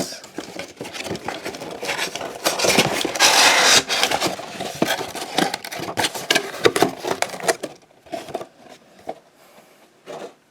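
Cardboard box and plastic packaging being handled: irregular rustling, scraping and small clicks as the inner box of a boxed figure is opened, with a louder, longer rustle a few seconds in and quieter handling near the end.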